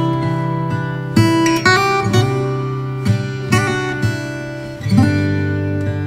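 Background music: an acoustic guitar playing plucked and strummed chords, a new chord every half second to a second.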